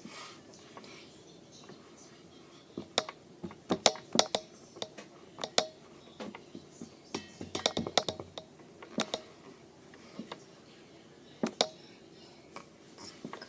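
Slime being squeezed and poked by hand, making irregular sharp clicks and pops, in clusters with short quiet gaps between them.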